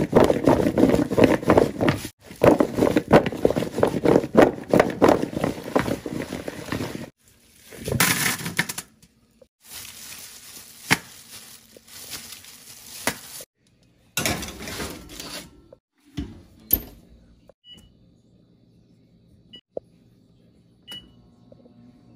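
Raw potato wedges tossed and stirred in a plastic mixing bowl, a dense rattle of pieces knocking against each other and the bowl for about seven seconds. Then wedges are laid out on a foil-lined baking sheet in short bursts of foil crinkling and knocks. Near the end come three short beeps from an oven's touch-pad controls.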